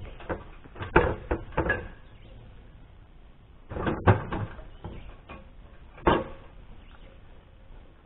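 Aluminum ladder knocking and clanking as it is handled and laid down on the ground: a few sharp knocks in the first two seconds, a louder cluster about four seconds in, and one more knock about six seconds in.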